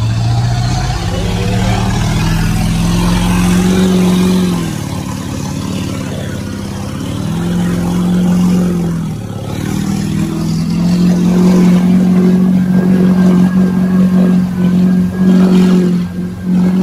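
A Chevrolet mud truck's engine revs hard while it ploughs through a flooded mud hole, with water and mud spraying off the wheels. The engine climbs about a second in and holds, drops off around four seconds, surges again briefly, then climbs and stays high for the last several seconds.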